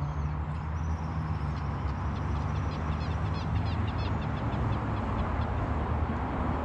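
Steady rumble of highway traffic. Over it, a bird chirps in quick runs of short high notes through the first few seconds.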